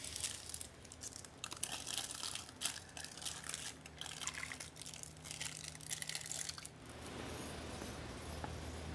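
Coffee poured from a stainless-steel thermos flask into a paper cup: a faint, uneven trickle and splash that stops about seven seconds in, leaving a steady low room hum.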